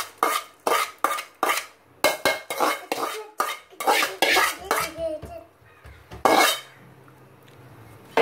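Rice being scraped out of a metal bowl into a cooking pot: quick scrapes and taps of metal on metal, about three a second, thinning out after about five seconds, with one last louder scrape about six seconds in.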